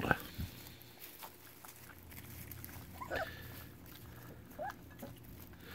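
Four-week-old goldendoodle puppies eating soft mush from a shared dish: faint lapping and smacking, with two short high squeaks, one about halfway through and another a second and a half later.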